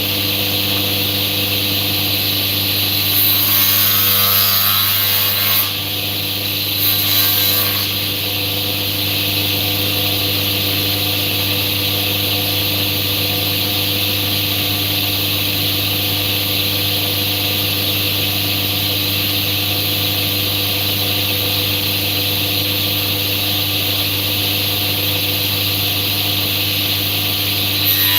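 An electric woodworking machine's motor running with a steady hum, with two brief louder, shriller passages about three and six and a half seconds in.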